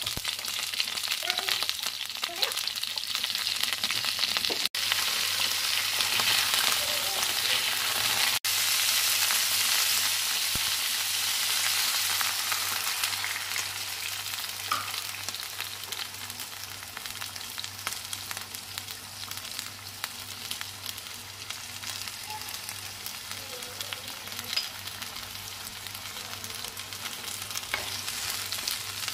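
Cauliflower and carrot pieces sizzling in hot oil in a frying pan and being stirred with a spatula. The sizzle is loudest in the first half and eases off later.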